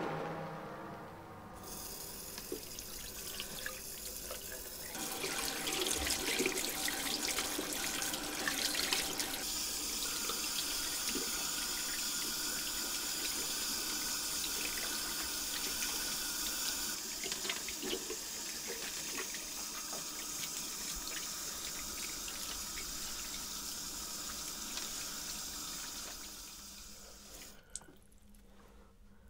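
Water running steadily from a tap, as at a sink, then dying away near the end.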